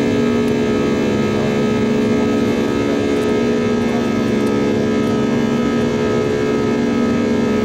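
Airliner cabin noise from a window seat over the wing: the turbofan engines drone steadily with a constant low hum, as the jet climbs out after take-off.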